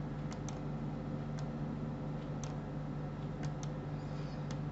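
Computer mouse buttons clicking, a handful of separate sharp clicks spaced unevenly, over a steady low hum.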